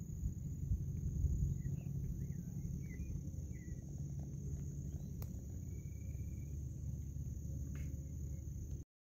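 Lakeside outdoor ambience: a low rumble of wind on the microphone under a steady high-pitched insect drone, with a few faint bird chirps about two seconds in. The sound cuts off abruptly just before the end.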